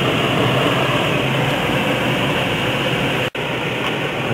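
Steady rushing of air past a glider's cockpit canopy in flight, with a brief drop-out about three seconds in.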